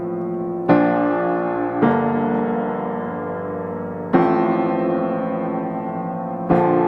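Background piano music: slow, held chords, with a new chord struck four times.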